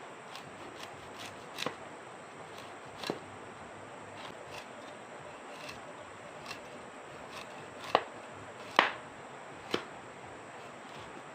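Hand-peeling a vegetable for cooking: scattered light scraping clicks of the blade, with three sharper knocks near the end.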